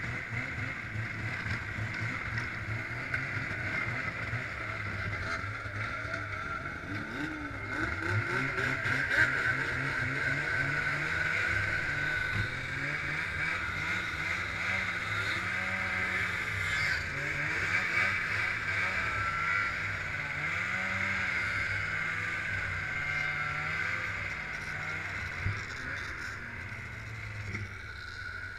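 Snowmobile engine running: it idles at first, then speeds up about eight seconds in and runs at speed, its pitch rising and falling with the throttle.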